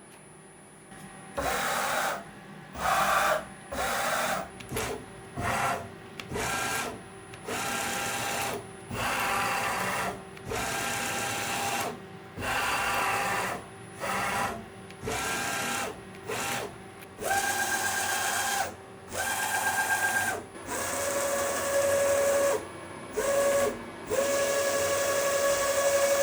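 Axis drive motors of a manual milling machine converted to CNC, whining through a series of short jog moves, each lasting about a second with brief pauses between. The pitch holds steady within each move and drops lower for the last few moves.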